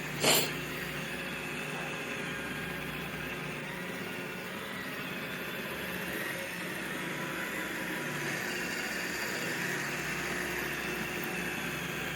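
iRobot Roomba 694 robot vacuum running with a steady motor and brush hum. A single sharp click comes just after the start.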